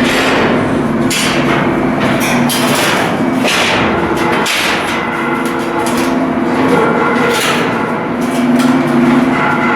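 Irregular hammer-like strikes, roughly one every second or so, over a steady machinery drone.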